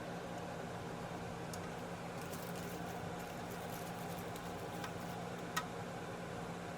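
Steady mechanical hum, with a few faint small clicks and one sharper click about five and a half seconds in.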